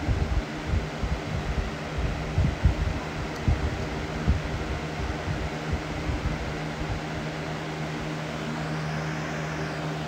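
Lasko B20301 box fan running at full speed: a steady rush of air over a constant motor hum. The air stream buffets the microphone with irregular low gusts that settle down after about seven seconds.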